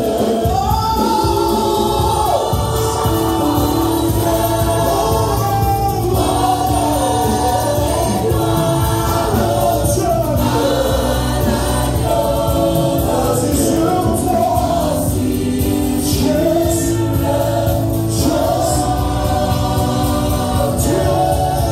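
Gospel choir singing a praise song in long held notes, over a band with steady bass and drums.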